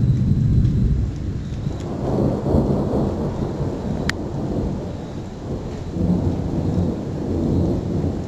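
Thunder rolling and rumbling continuously, swelling about two seconds in and again near the end, with a single sharp click about four seconds in.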